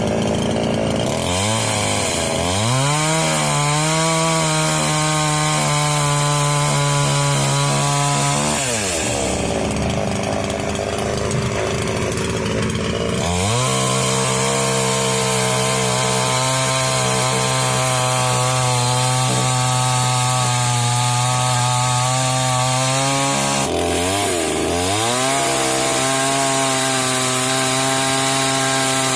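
Daewoo two-stroke petrol chainsaw running, throttled up from idle to a steady high-revving pitch, dropped back to idle for a few seconds, then held at high revs again with one brief dip and recovery.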